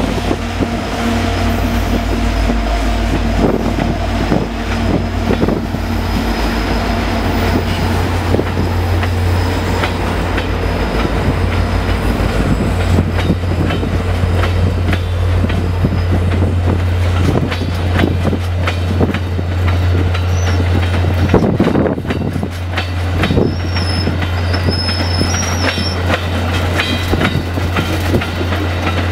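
A VIA Rail F40PH-3 diesel locomotive's engine drones as it passes, then the train's passenger cars roll by with a steady clickety-clack of wheels over the rail joints. Thin, high wheel squeals come in near the end.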